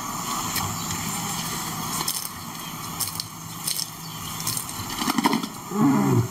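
Male lion calling: a low, drawn-out moan ending in a louder, deeper grunt near the end, over a hissy background with frequent crackles.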